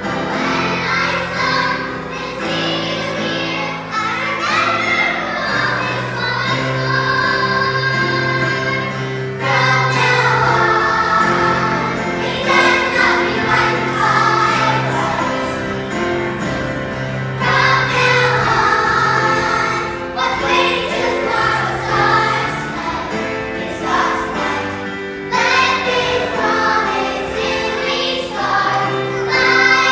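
Recorded pop backing track with a group of children singing along.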